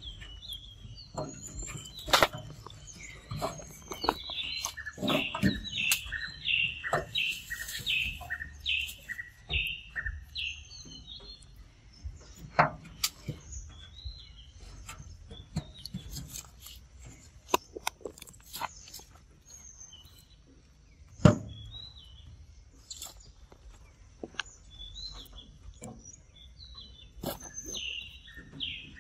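Wild birds singing, with a run of short, high, downward-sweeping notes at about two a second through the first third and scattered chirps after. Sharp clicks and knocks come throughout, the loudest about three-quarters of the way in.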